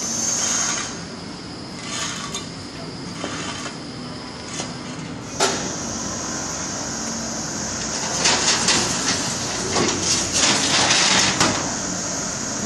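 SC200GZ rack-and-pinion construction hoist car running down to the ground landing with a steady mechanical hum. A single sharp clack about five seconds in is followed, from about eight seconds, by a rapid run of metal clanks and rattles as the mesh landing gate is lifted open.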